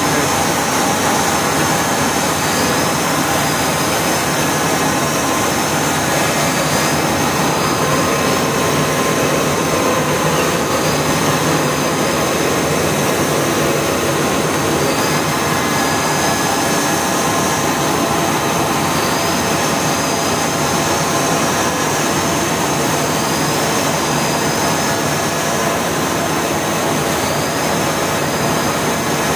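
Open-end rotor spinning machine running: a loud, even whir with a steady high whine on top and faint short chirps recurring every couple of seconds.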